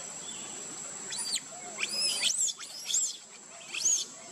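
Baby monkey squeaking: about five short, high-pitched squeaks, each rising then falling, starting about a second in. A steady high insect drone runs underneath.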